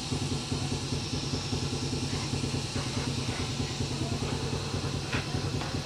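Engine running steadily with an even, rapid beat.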